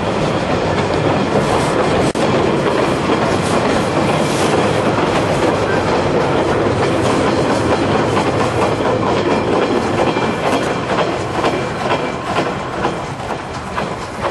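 Freight train's flat wagons rolling past, wheels clattering over the rail joints with scattered clicks. The sound falls away near the end as the last wagon goes by.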